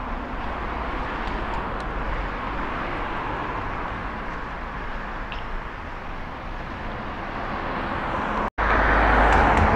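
Steady vehicle and traffic noise with a low rumble. It cuts out for an instant about eight and a half seconds in and comes back louder.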